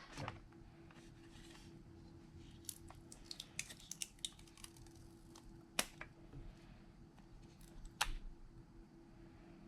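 Light clicks and ticks of small hand tools handling smartphone parts: a run of quick ticks in the middle, then two sharper clicks a couple of seconds apart, over a faint steady hum.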